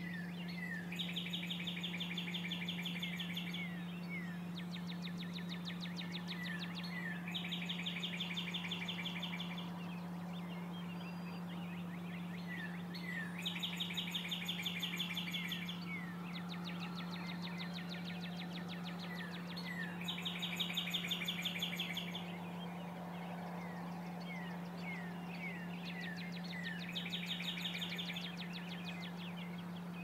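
A songbird repeating the same song about every six seconds, five times: a few short falling notes, then a fast trill lasting about two seconds. A steady low hum runs underneath.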